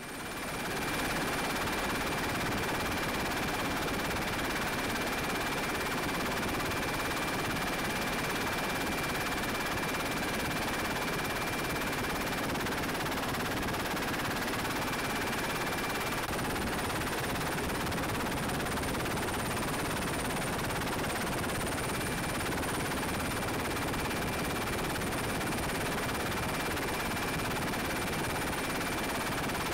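Helicopter in flight: a steady, dense rotor chop with a thin high whistle running through it.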